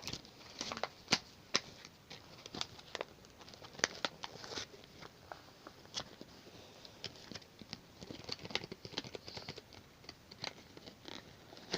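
Hands getting a fidget spinner out of its box and packaging: scattered light clicks, crinkles and rustles, irregular and faint.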